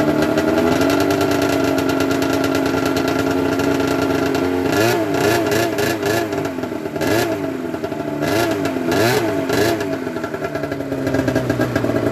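Polaris Dragon snowmobile's two-stroke engine idling steadily, then blipped in a string of short, quick revs from about five seconds in.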